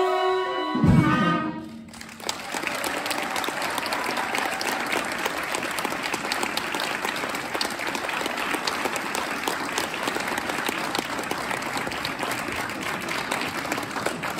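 A big band's final held chord, cut off with a loud closing hit about a second in, followed by steady applause and clapping from the audience and band.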